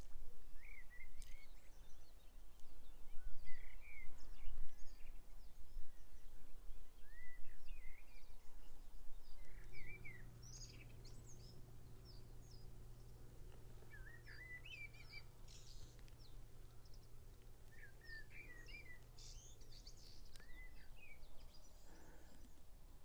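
Several birds singing and calling with short chirps throughout, over an uneven low rumble for the first ten seconds; from about ten seconds in, a steady low hum joins and runs until near the end.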